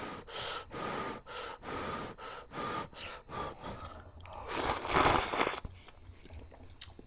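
A person chewing a mouthful of instant jjamppong noodles, with wet mouth noises about two times a second. About halfway through comes one loud slurp of noodles lasting about a second.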